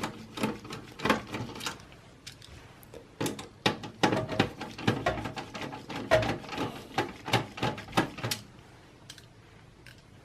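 Irregular clicks and light metallic clatter of a Phillips screwdriver backing out motherboard screws inside a Dell Precision 3620 tower case, with small parts being handled. It stops about eight and a half seconds in.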